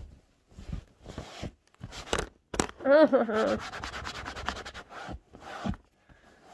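A container of thin, watery clear face mask being handled and shaken, the liquid sloshing about with rubbing and quick rhythmic rattling strokes. A short wobbling pitched sound about three seconds in is the loudest moment.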